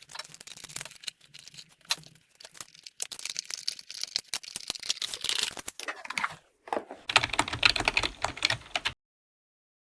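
Rapid, dense clicking and tapping of small hard objects. About seven seconds in, a louder rustling with a low rumble comes in, then cuts off suddenly shortly before the end.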